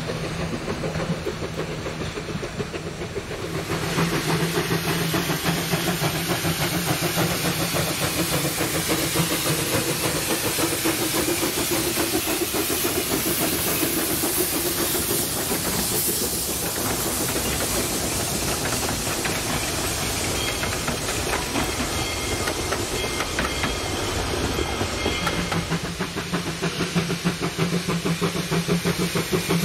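Two-foot-gauge steam train of Bridgton & Saco River No. 7 passing, with steam hissing and a quick steady clickety-clack of wheels over rail joints. A steady low hum is heard at the start and again near the end.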